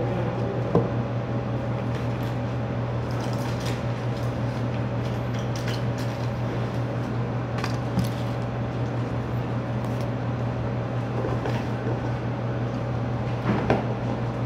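Plastic food containers and utensils being handled, with scattered clicks and knocks, the sharpest about a second in, midway and near the end, over a steady low hum from a window air conditioner.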